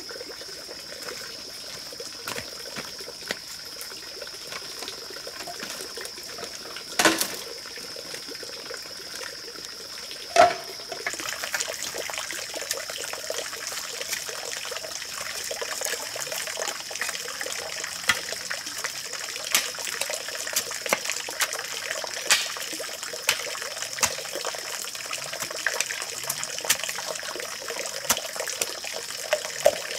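Two sharp knocks of hollow bamboo tubes, then a bamboo pole jabbed into the earth again and again while digging: gritty scraping with a sharp strike about once a second.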